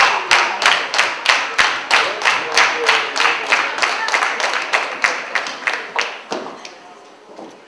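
Wrestling crowd clapping in unison at about three claps a second, with voices mixed in. The clapping dies away about six seconds in.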